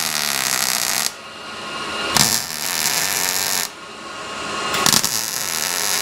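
Welder making short plug welds on a sheet-metal quarter panel: three bursts of arc noise, each about a second and a half long, with short pauses between. The first is already going at the start and the last runs on past the end.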